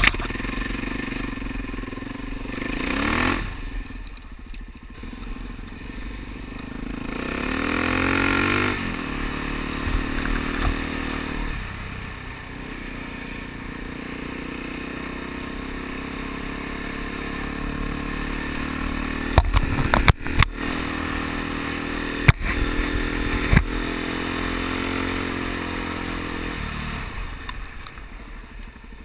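Suzuki DR-Z dual-sport motorcycle's single-cylinder four-stroke engine under way, its pitch rising twice in the first nine seconds as it accelerates, then running steadily. A few sharp knocks come about two-thirds of the way through, and the engine note drops off near the end as the bike slows.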